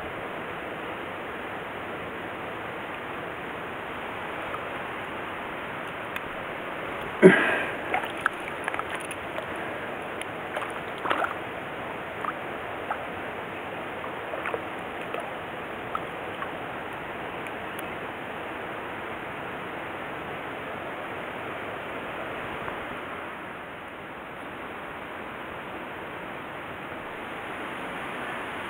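Steady rush of flowing stream water, with a sudden loud knock or splash about seven seconds in and scattered smaller clicks and splashes for several seconds after.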